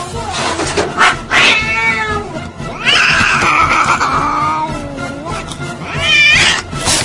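A domestic cat meowing in drawn-out calls: a short call about a second and a half in, a long call falling in pitch from about three seconds, and a short wavering call near the end.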